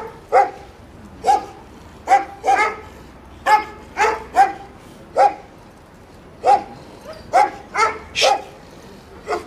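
Jack Russell terrier barking repeatedly at dogs behind a fence: about fourteen short, sharp, high barks at an uneven pace, sometimes two or three in quick succession.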